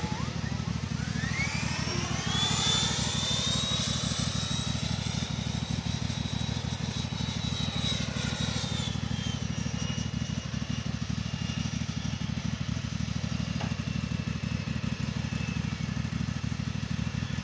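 Electric ducted fan of a 120 mm HSDJets F-86 Sabre Sky Blazer RC jet whining in flight. Its pitch rises over the first few seconds, holds high, then falls away from about nine seconds in, over a steady low rumble.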